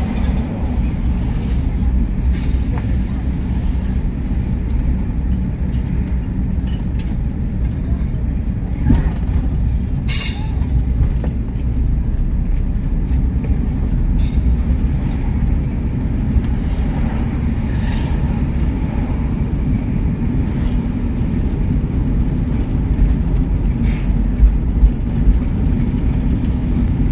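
Steady low rumble of a car's engine and tyres on a paved road, heard from inside the moving car, with a few brief higher-pitched sounds coming through.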